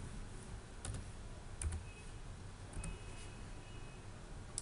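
A few scattered keystrokes on a computer keyboard, sharp single clicks about a second apart, as numbers are typed into a field.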